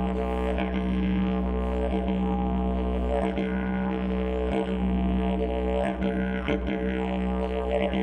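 Didgeridoo playing a continuous low drone without a break, its overtones shifting in and out.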